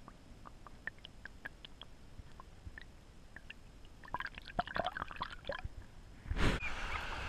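Water dripping and plinking close to a camera at the water's surface, a scatter of small drops at first, then a busier run of small splashes and bubbles as a hand moves in the water, and a louder splash near the end.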